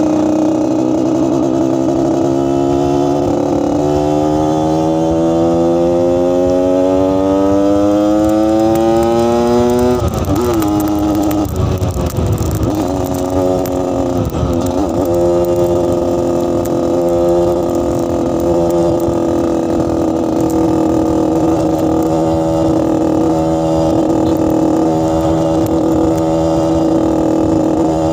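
Yamaha RX-King two-stroke single-cylinder motorcycle engine and exhaust. It idles, is revved slowly up over about six seconds, drops back with a few wavering throttle blips, then settles to a steady, lightly pulsing idle with the growling 'ngorok' note of the exhaust.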